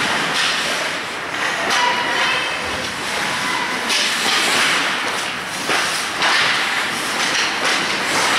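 Ice hockey play heard from rink level: skate blades scraping and carving the ice, with a few sharp knocks of sticks and puck about four and six seconds in.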